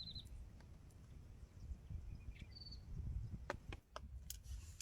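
Faint outdoor ambience: a low rumble of wind on the microphone, two short high chirping trills, and a few light clicks in the second half.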